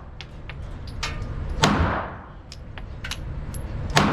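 Two 9mm pistol shots, one about a second and a half in and one at the very end, each followed by a short echoing tail, with faint sharp clicks between them.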